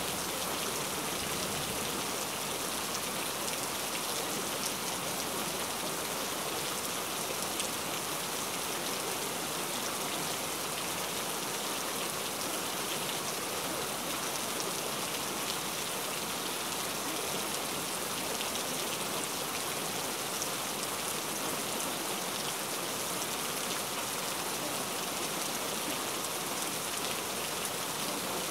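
Steady rain, an even hiss of falling water with faint scattered drop ticks and no breaks.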